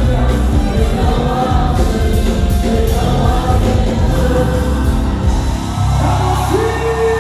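Live gospel music: singers with a band, with electric guitar, keyboards and heavy drums and bass, and a voice rising into a held note near the end.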